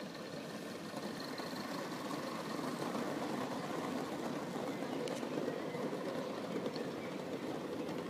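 Gauge one model train running past close by, its wheels rumbling steadily on the rails, a little louder through the middle as the carriages pass.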